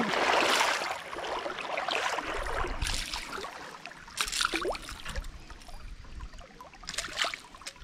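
Shallow creek water splashing and sloshing as someone wades through it, in a few separate short splashes.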